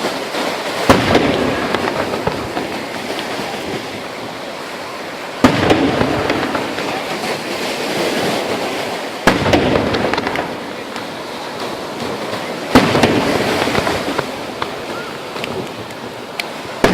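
Fireworks bursting overhead: five sharp bangs about three to four seconds apart, each followed by a few seconds of rumbling, crackling tail.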